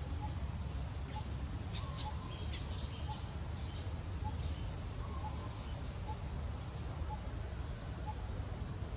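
Outdoor ambience: a short bird note repeating about once a second over a steady, high insect drone and a steady low rumble, with a few brief high chirps about two seconds in.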